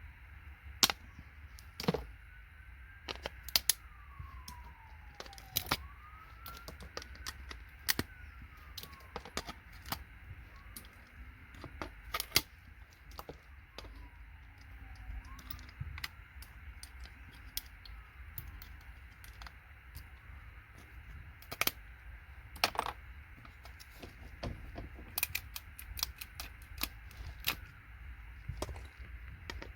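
Irregular sharp taps and clinks of metal tools on circuit boards and small electronic components being knocked loose and dropped, with a few louder knocks.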